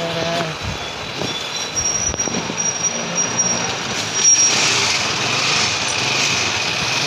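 Street traffic: small motor vehicle engines running, with a thin high squeal lasting about two seconds near the middle and a louder hiss from about four seconds in.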